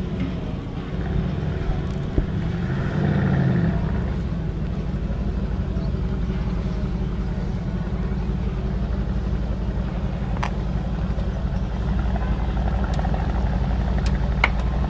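Brabus 650's 4.0-litre twin-turbo V8 idling steadily, swelling briefly about three seconds in. A few light clicks come near the end.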